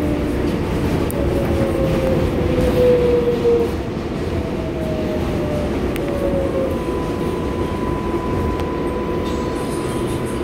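R142A subway car running on the rails, heard from on board: a steady rumble and clatter, with thin tones falling in pitch over the first few seconds, then a steady high tone from about two-thirds of the way through.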